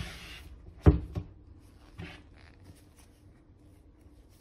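A cardboard smartphone box knocking once against a tabletop about a second in, followed by a couple of softer taps and light rustling as the box is handled in gloved hands.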